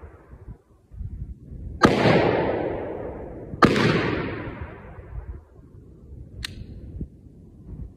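Two AR-15 rifle shots about two seconds apart, each echoing through the woods for over a second. About six and a half seconds in, a single sharp click.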